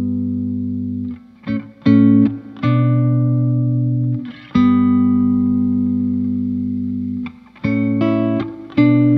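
Background music on guitar: chords struck and left to ring for a few seconds each, with a run of quicker notes near the end.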